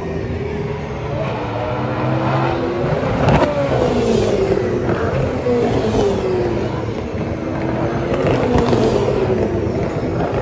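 Race cars passing at speed down the straight one after another, each engine note dropping in pitch as it goes by, with several cars' engines overlapping and a rising note as one accelerates through the gears.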